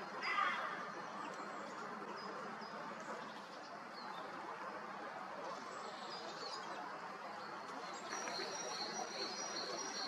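Small birds chirping and calling in thin, high notes, sparse at first and denser and overlapping from about eight seconds in, over a steady outdoor background hiss.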